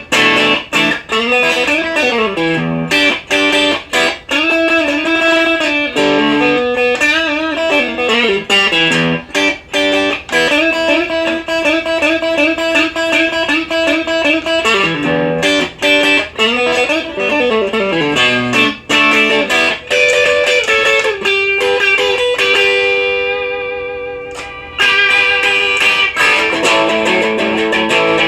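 Strat-style electric guitar with Duncan Designed pickups, played through a Maxon OD-9 overdrive pedal into a Marshall DSL-1 amp: quick runs and licks sweeping up and down the neck. About two-thirds of the way through, one note is held and left to fade, then the playing starts again.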